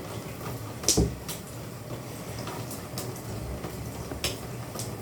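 A few short knocks and bumps in a bathtub, the loudest about a second in and fainter ones later, over a low steady hum.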